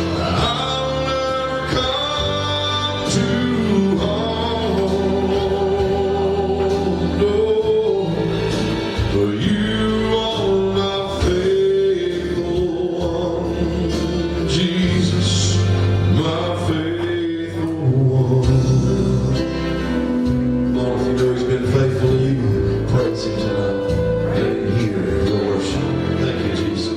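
Live gospel song: a man singing long held lines over instrumental accompaniment with a steady bass.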